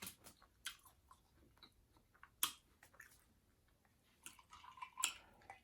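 Close-up chewing of fast food: irregular mouth clicks and smacks, the loudest about two and a half seconds and five seconds in.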